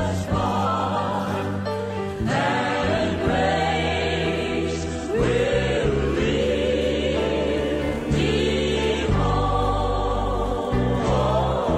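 Background music: a choir singing a slow gospel hymn over held instrumental chords.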